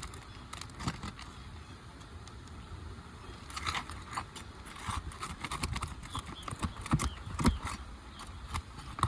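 Roofing nails being worked out from under asphalt shingles: a metal tool prying and scraping against the shingles and nails, with irregular clicks, taps and scrapes that grow busier about three and a half seconds in and a couple of sharper knocks later on.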